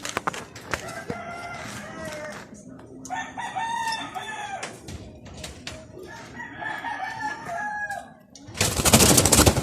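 A rooster crowing three times, each crow long and drawn out, followed near the end by a loud, short burst of rustling noise.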